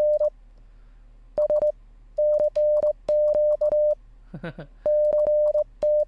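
Morse code sidetone from a web-based Morse trainer, one steady beep keyed by hand with a mouse button into uneven dits and dahs at slow speed, with a sharp click at the press and release of each element.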